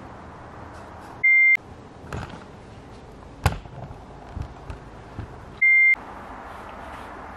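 Two loud, short electronic beep tones, each about a third of a second, about four seconds apart, with the room sound cutting out under each one: beeps edited into the soundtrack. Between them, a sharp knock and some soft thumps and rustling.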